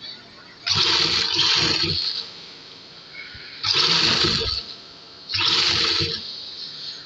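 Sewing machine stitching a fabric strip and lace onto a hem, run in three bursts of about a second each, starting and stopping sharply with short pauses between.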